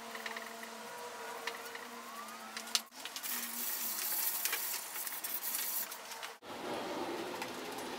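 Hand rubbing along a painted wooden table apron, a hissy scrubbing sound with fine crackles, loudest in the middle. A sharp click comes just before the sound cuts out briefly near 3 s, and again it cuts out briefly later.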